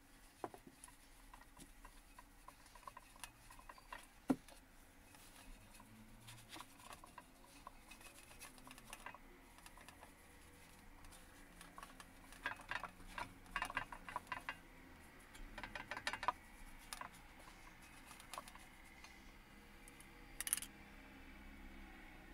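Faint scattered clicks, taps and rubbing of a gloved hand working over a sheet-metal shovel blade as wet paint is spread, with a dense run of ticks in the middle and one sharper click about four seconds in. Near the end comes a short hiss, like a brief squirt from an aerosol spray-paint can.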